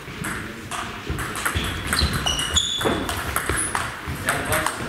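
Table tennis rally: the ball clicking in quick succession off the rackets and the table. A few short high shoe squeaks on the hall floor come around the middle.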